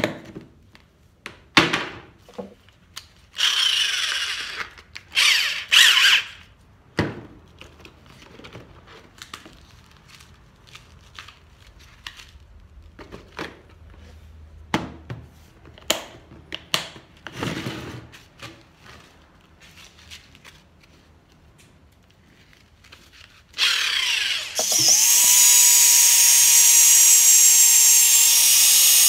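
Clicks and knocks of a plastic organiser box being opened and sanding discs handled, with two short rasping noises about four and six seconds in. In the last five seconds a corded Black+Decker drill fitted with a sanding disc starts up and runs steadily with a level whine, sanding a cypress vase on the lathe.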